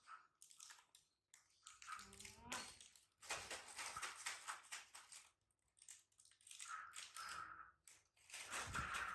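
Plastic snack wrapper crinkling as it is handled, with a few short squeaky calls from a baby monkey.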